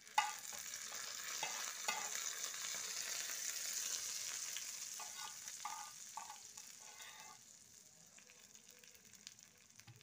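Hot ghee with fried chopped almonds sizzling as it is poured from a small pan onto cooked milk seviyan (vermicelli kheer). The hiss starts at once, stays strong for about five seconds, then dies away.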